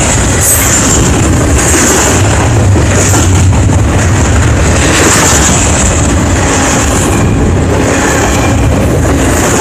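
CSX intermodal freight train's double-stack container cars rolling past close by: a loud, steady rumble of steel wheels on the rails, with a high hiss that swells and fades.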